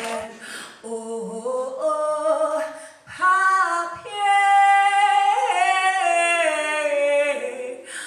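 A woman singing long, held notes with a wavering vibrato, growing louder about three seconds in.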